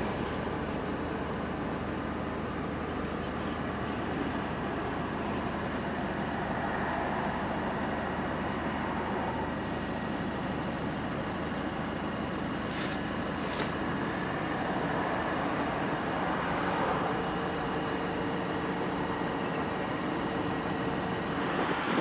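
Steady running noise of a car heard from inside the cabin: a constant low hum with hiss.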